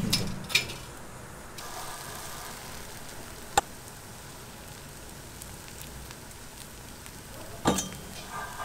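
Batter sizzling in hot cast-iron fish-shaped bread (bungeoppang) molds, a steady hiss, with a few sharp clicks about half a second in, at about three and a half seconds, and near the end.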